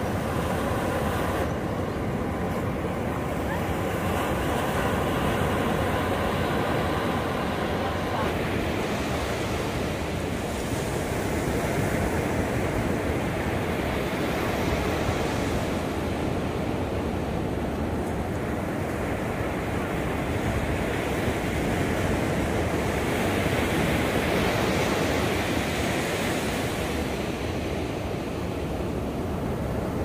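Ocean surf breaking and foam washing up a sandy beach, a steady rush that swells and eases as each set of waves comes in.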